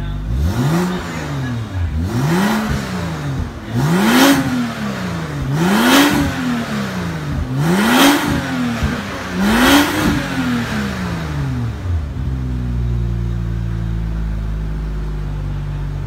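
BMW 435i's turbocharged 3.0-litre inline-six, breathing through an aftermarket valved cat-back exhaust and catless downpipe, revved six times in quick succession with the car standing still. Each rev rises and falls back. For the last few seconds the engine settles to a steady idle.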